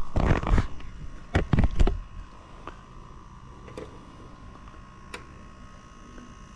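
Handling noise: a cluster of knocks and rustling in the first two seconds as the camera and meter leads are moved against the condenser's metal cabinet, then a few faint ticks. A steady faint tone runs underneath.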